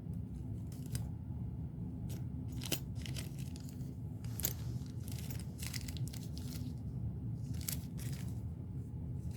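Small plastic bag of jewelry charms being handled and opened, rustling with scattered short crackles, over a steady low hum.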